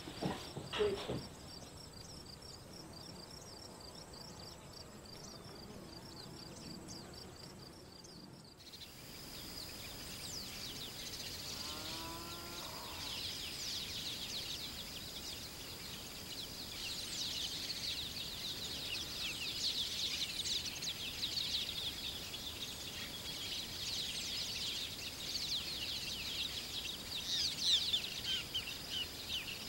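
Crickets chirping in a steady, even pulse. About eight and a half seconds in, the background changes abruptly to a louder, dense chorus of rapid high chirping outdoors, with one short lower call about twelve seconds in.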